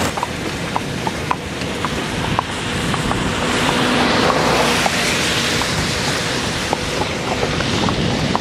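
A car passing on a wet asphalt road, its tyre hiss swelling and easing about halfway through, over wind on the microphone and the light clip-clop of Hucul horses' hooves on the asphalt.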